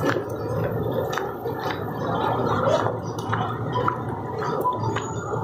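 Outdoor ambience of a busy pedestrian street at night: a steady noisy murmur with scattered clicks and knocks.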